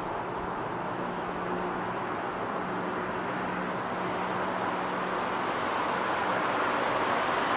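Distant vehicle noise: a steady rushing hum with a faint low drone under it, growing louder over the last few seconds.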